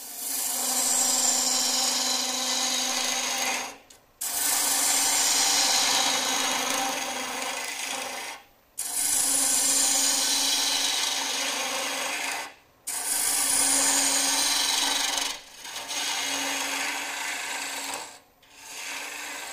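A gouge shaving the stem of a spinning mesquite goblet on a wood lathe, over the lathe's steady hum. There are about six cutting passes of a few seconds each, with short breaks between them, and each pass falls a little in pitch.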